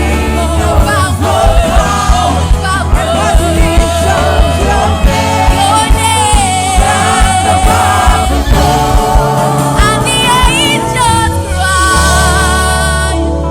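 Church choir and band performing a gospel worship song: sung voices with vibrato over bass and a steady drum beat.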